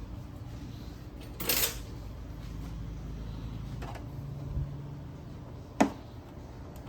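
Handling sounds from work on an Epson L6290 inkjet printer over a steady low hum: a short clatter, a brief motor hum with a click, then one sharp click.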